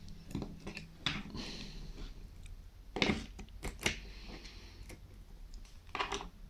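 Small clicks and scrapes of plastic and metal as a screwdriver pries an 18650 lithium-ion cell out of a white plastic power bank case. A handful of sharp clicks, the loudest about three to four seconds in and again near six seconds.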